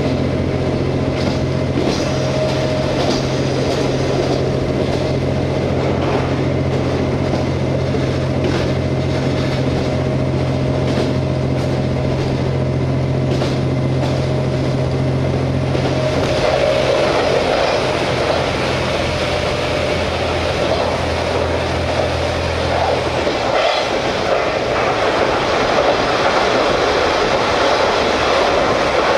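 Diesel engine of a JR KiHa 47 railcar heard from inside the car while the train runs, a steady low drone over track and wheel noise. About halfway the engine note drops away and the running noise takes over, and the last of the low drone stops near three-quarters of the way through.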